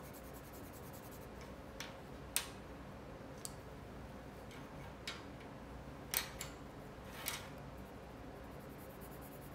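A few scattered sharp clicks and taps of colouring pens and pencils being handled on a tabletop, about seven in all, over a faint steady background.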